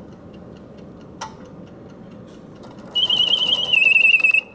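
A late-1950s German mechanical singing bird automaton alarm clock goes off. Faint ticking and a click come first. About three seconds in, the bird's whistle starts with a warbling trill and settles into a held high note.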